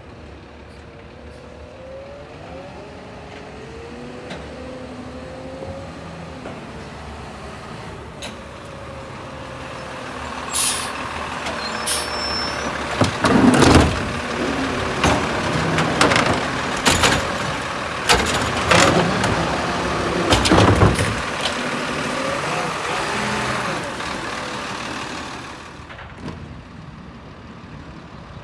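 Automated side-loader garbage truck pulling up with a hiss of air brakes, then its arm lifting and emptying a recycling cart. The engine runs hard under the hydraulic lift while a series of loud bangs rings out as the cart is shaken over the hopper. The sound eases off after the arm sets the cart down.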